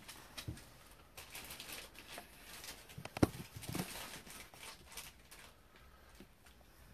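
Scattered light taps and clicks, with one sharper knock about three seconds in.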